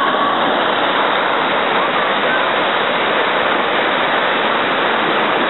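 Ocean surf breaking and washing through the shallows, a steady rush of churning water and foam.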